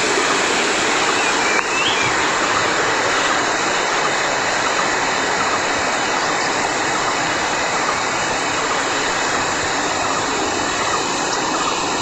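Rain-swollen mountain stream rushing over rocks in shallow rapids, a steady unbroken rush of water.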